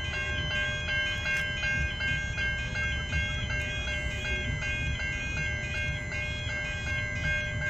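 Electronic level crossing warning bell ringing continuously, about two to three strokes a second, each strike a bright high-pitched ringing tone, over a low steady rumble.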